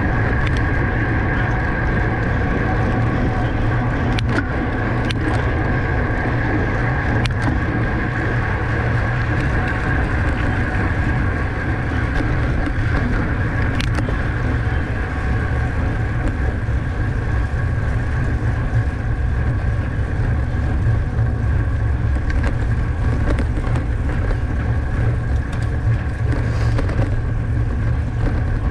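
Steady rush of wind over the microphone of a camera riding along on a bicycle in a race, with road and drivetrain noise and a few sharp clicks.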